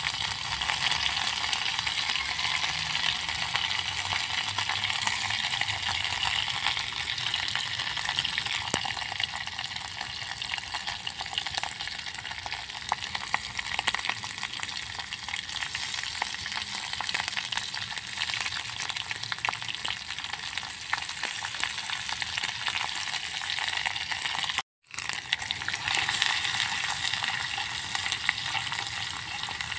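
Chilli paste, shallots and garlic sizzling in hot oil in a clay pot, a steady crackling hiss, with a metal ladle stirring through it. The sound cuts out for a moment about three-quarters of the way through, then carries on.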